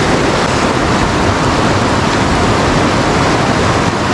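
Steady rush of a river's current, running high and muddy after rain, an unbroken loud wash of water with no separate splashes.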